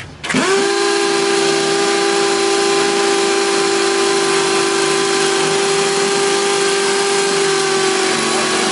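Two Makita 18V cordless hammer driver-drills, a BHP458 and a BHP459, start together about a third of a second in. They rise quickly to speed, then run steadily side by side, drilling into a concrete block. Two motor whines sit close together in pitch over a hiss of bit on stone.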